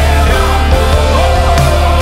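Live worship band playing a song: electric bass, electric guitars and drums with cymbals, under a voice singing the melody.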